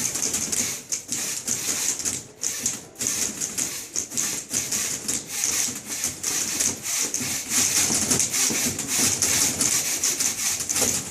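Several manual typewriters played together as percussion: a dense, rapid clatter of keystrokes.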